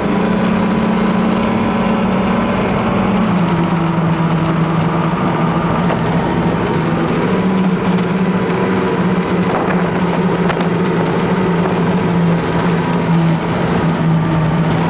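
MerCruiser racing-boat engine running steadily, its pitch dropping slightly about three seconds in.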